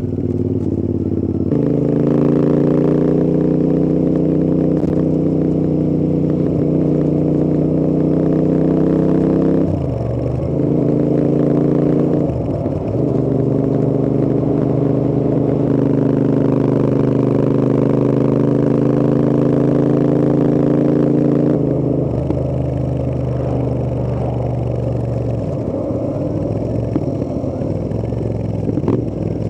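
Royal Enfield Interceptor 650's parallel-twin engine and exhausts running at steady revs under way, with two brief breaks in the engine note about ten and twelve seconds in. The note drops back to a quieter, rougher running for the last few seconds.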